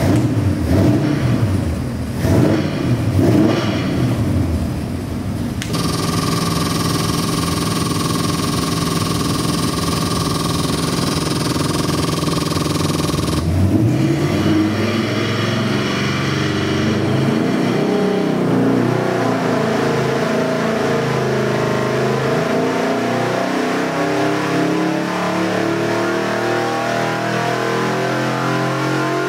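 Holley-carbureted 383 cubic-inch small-block Chevy stroker V8 on an engine dyno. It revs in a few short blips, then holds at a steady low speed. About halfway through it begins a wide-open dyno pull, its note rising steadily under load to around 5,000 rpm.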